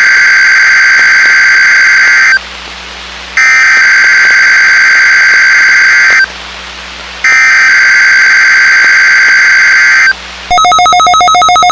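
NOAA Weather Radio SAME digital header: three identical bursts of buzzy data tones, each about three seconds long with a second's gap between them. About ten and a half seconds in, the steady warning alarm tone begins for the weekly test.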